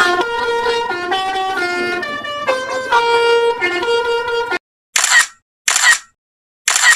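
Basuri 'telolet' horn playing a melody of quick stepped notes, cutting off abruptly about four and a half seconds in. Three short noisy bursts with gaps of silence follow.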